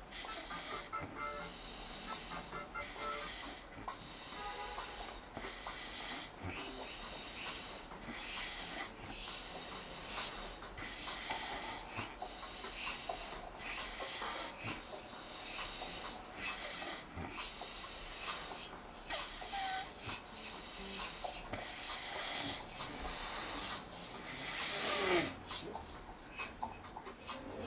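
A man snoring in his sleep, one breathy, hissing snore every one to two seconds. The snores stop near the end.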